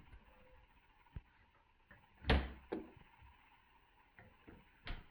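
A few separate clunks and clicks from objects being handled: a small click about a second in, a louder clunk a little past two seconds followed by a softer one, and another clunk near the end.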